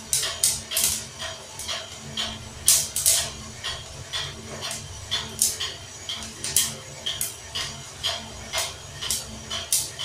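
Coffee beans cracking in a prototype drum roaster: irregular sharp pops, several a second, over the steady low hum of the running roaster. This is the crack stage of the roast, heading toward a dark roast.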